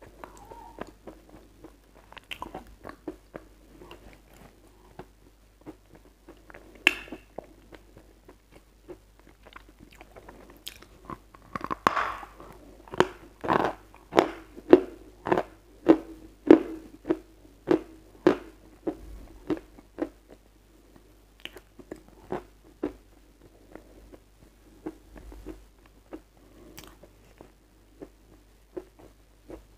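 Close-miked biting and crunchy chewing of a lump of white chalk. A sharp bite comes about seven seconds in. The loudest part follows in the middle, a run of regular crunching chews a little under one a second, before the chewing turns softer and more scattered.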